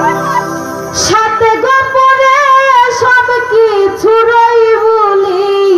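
A woman singing into a microphone, amplified over a loudspeaker, in long held notes with a wavering pitch.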